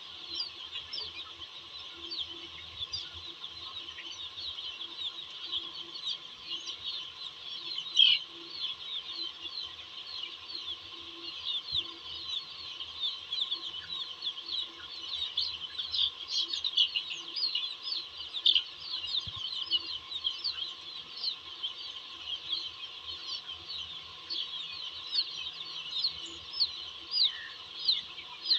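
A large flock of chicken chicks peeping without a break: a dense chorus of short, high cheeps that slide downward in pitch, with one louder cheep about eight seconds in. A faint steady hum runs underneath.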